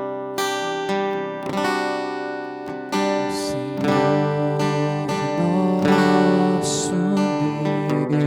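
Acoustic guitar playing slow, sustained strummed chords as the instrumental introduction to a worship song.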